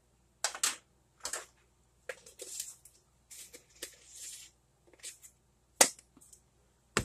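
Plastic kitchen containers and a measuring spoon being handled: a series of sharp clicks and knocks as lids are opened and the spoon taps against plastic, with a couple of short scraping sounds between. The sharpest knocks come near the end.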